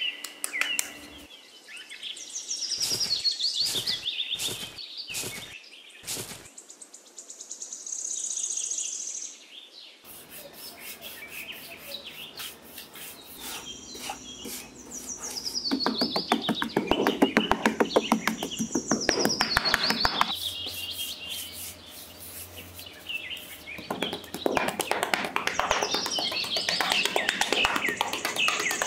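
Small birds chirping in repeated high phrases, over a small metal hand hoe chopping and scraping through sand in quick strokes, a few separate strokes early on and dense runs in the second half.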